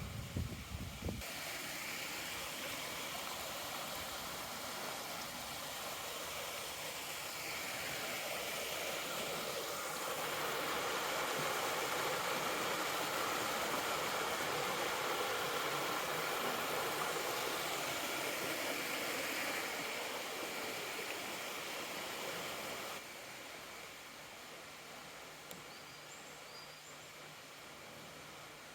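Rushing water of a mountain river running over rocks and small falls, a steady hiss that swells louder in the middle and drops suddenly in level about two-thirds of the way through.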